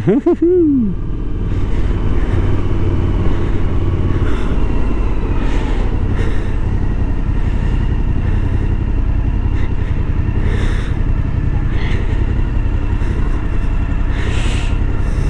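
Motorcycle engine running under a steady low rumble of wind on the microphone while riding through city traffic, with a few short louder gusts now and then.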